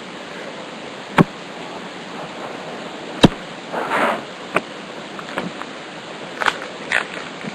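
Trading cards being handled and flipped through: two sharp clicks about one second and three seconds in, a brief rustling swish, and a few lighter ticks, over a steady hiss.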